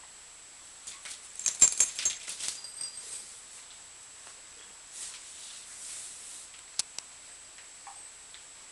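A Border Terrier and a kitten scuffling in play on a carpet: a burst of knocks and rustles about a second in, softer brushing later, and two sharp clicks near the end.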